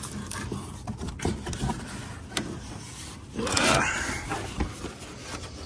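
A box and its packaging being opened and handled: scattered rubbing, scraping and light knocks, with a louder scrape and rustle about three and a half seconds in as the contents are slid about.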